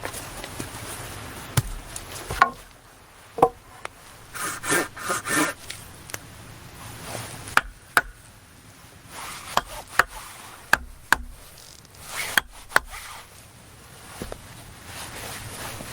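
Irregular sharp knocks and clicks, with a few short scraping rubs a little under five seconds in, like wood being knocked and handled.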